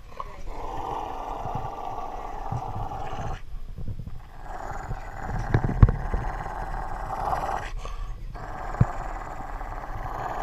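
Dog growling while tugging on a rope toy, in three long growls of a few seconds each with short breaks between them. A few knocks cut through, the loudest about six seconds in.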